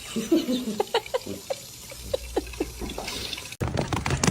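Water plopping in a quick run of short falling drops, about five a second, before the sound switches abruptly to a busier clatter near the end.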